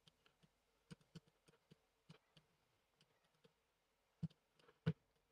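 Near silence with faint, scattered clicks from working a computer while editing, two of them a little louder about four and five seconds in.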